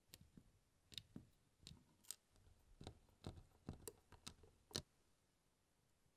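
Soft, irregular clicks and taps of tweezers and fingertips handling the small plastic and metal parts of a 1/12 scale Tamiya Ducati 916 model kit: about a dozen, stopping around five seconds in.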